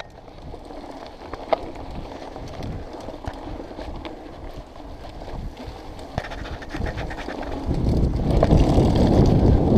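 Mountain bike rolling along a dirt forest trail, with scattered clicks and rattles from the bike. About eight seconds in, a loud wind rumble on the microphone swells up.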